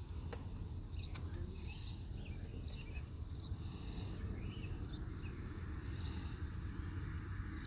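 Small birds chirping in short, quick calls over a steady low rumble, with a couple of light clicks in the first second or so.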